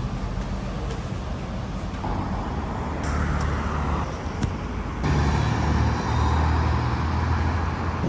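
Steady low rumble of motor vehicles with street noise, its character changing abruptly about two, three and five seconds in.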